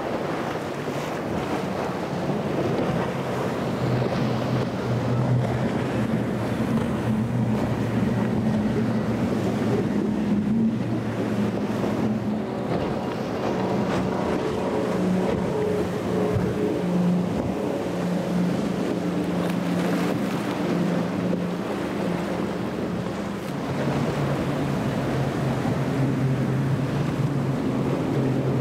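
Outboard-powered boats running at speed through choppy water, a steady engine drone over the rush of spray and wind on the microphone. The engine tone shifts a couple of times as one boat gives way to the next.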